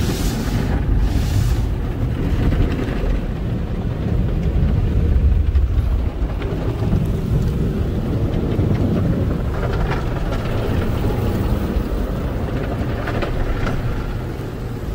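Tunnel car wash equipment working over the car, heard from inside the cabin: a steady low rumble with rushing water spray.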